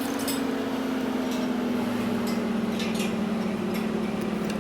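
A machine tool's motor running with a steady hum, its pitch sinking slowly, with a few light ticks and clinks over it.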